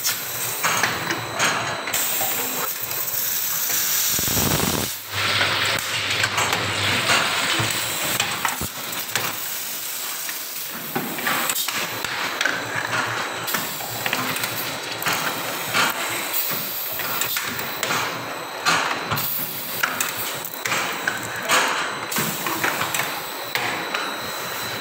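Automatic rotary soda filling and capping machine running on PET bottles: a steady, dense clatter of small clicks and knocks from the moving bottles and capping heads, over a continuous hiss.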